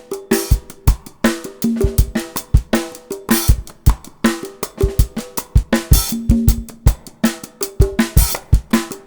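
Background music: a drum-kit beat of kick and snare hits at an even, quick pace, with short low notes repeating between the hits.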